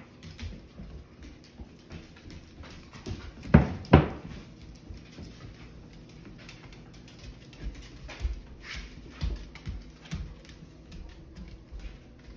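Dogs playing on a hardwood floor, claws clicking and scrabbling on the wood. Two short, loud barks come about three and a half seconds in.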